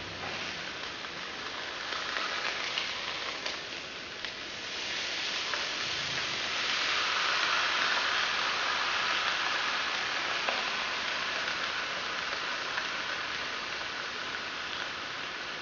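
Fish fillets sizzling in a ridged grill pan: a steady frying hiss that swells about five seconds in and stays strong, with a few faint ticks.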